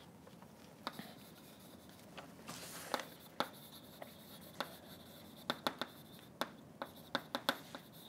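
Chalk writing on a blackboard: a string of sharp taps as the chalk strikes the board, with a scratchy stroke about two and a half seconds in.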